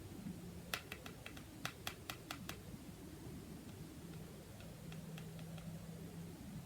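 A few faint, short taps and clicks of cards being handled on a table, clustered in the first couple of seconds, over a faint low hum.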